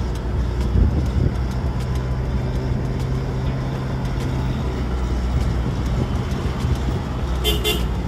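A car's engine hum and road noise heard from inside the moving car. The low drone stays steady, and a short higher-pitched sound comes near the end.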